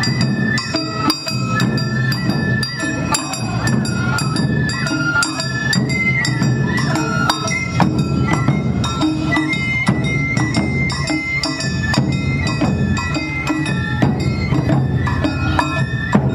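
Awa Odori festival music played by a marching band: a bamboo transverse flute (shinobue) plays a stepping melody over taiko drums and sharp, repeated strikes of a metal hand gong.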